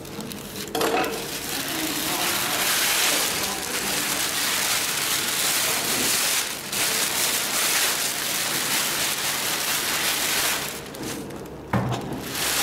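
Large sheets of thin, crisp white sail cloth rustling and crackling as they are gathered and pulled by hand, with a short knock near the end.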